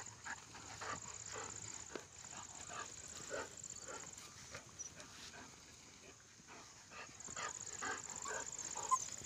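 German Shorthaired Pointer puppies and an adult dog giving short, irregular barks and yips while they play-fight, with a steady high-pitched whine behind them.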